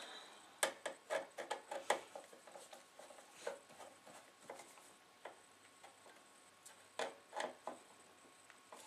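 Screwdriver turning small screws into a circuit board in a CD player's metal chassis: a scatter of small clicks and ticks as the blade seats in the screw heads and turns, bunched in the first two seconds and again about seven seconds in.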